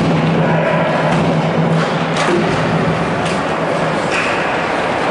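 Ice hockey rink sound: a few sharp clacks of sticks and puck over a steady wash of rink and crowd noise.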